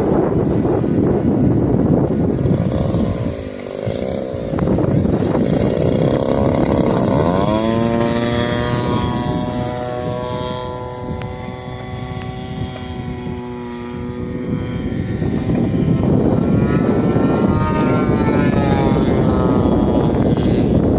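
50cc gas engine of a radio-controlled aerobatic model plane in flight, its propeller note sweeping sharply up about seven seconds in, holding for several seconds with small swings in pitch, then wavering again later. Wind rushes across the microphone at the start and near the end.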